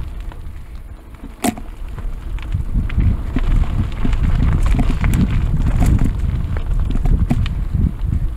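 Trek Roscoe 6 mountain bike ridden over a dirt forest singletrack, heard from a mounted camera: a steady low rumble of tyres and frame, with scattered clicks and rattles from roots and rocks and a sharper knock about one and a half seconds in.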